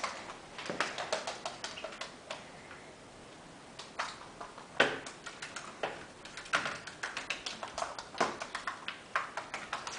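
A cockatiel's feet and claws tapping and scrabbling on the hard surface of a training tube as it makes its way through. The clicks are sharp and irregular, uneven in loudness, with a pause of a second or so about a third of the way in.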